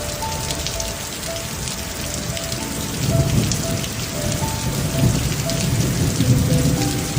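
Steady rain, with dense fine drop ticks, and a low rumble of thunder building from about three seconds in. A soft, slow melody of single notes plays over it.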